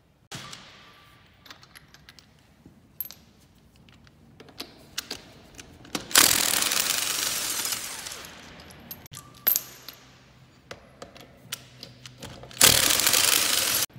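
Cordless impact wrench hammering lug nuts off a car wheel in two loud bursts, one about six seconds in and a shorter one near the end that stops abruptly, with light metallic clinks between them.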